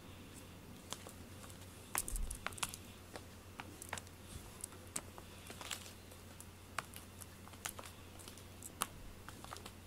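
Scattered light clicks and taps at irregular times, with a soft low thump about two seconds in: a string cat toy being flicked and dragged across wooden floorboards.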